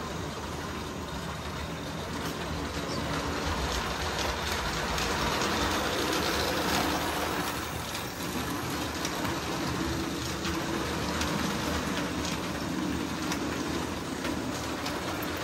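Lionel model train running on its track: a steady rolling rumble with faint scattered clicks.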